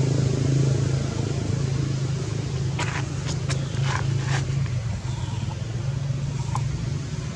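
A steady low engine drone, like a motor vehicle running at idle. About three seconds in comes a quick cluster of four or five short, sharp high sounds, and one more follows later.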